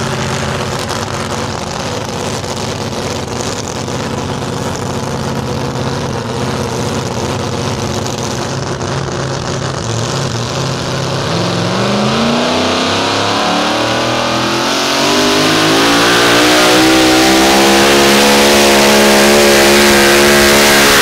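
Super modified four-wheel-drive pulling truck's engine running steadily, then from about halfway revving up hard, its pitch climbing and the sound growing louder.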